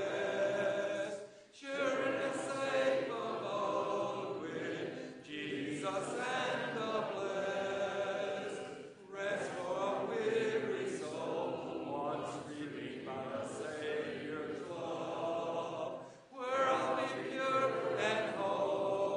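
Congregation singing a hymn's refrain a cappella, many voices together, in sung lines with brief breaks for breath between them.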